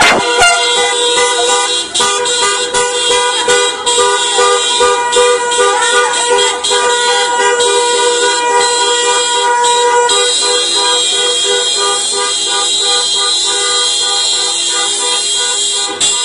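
Many car horns sounding at once from a line of cars in celebration, overlapping long blasts mixed with short toots. The horns settle into a steady, unbroken chorus in the second half.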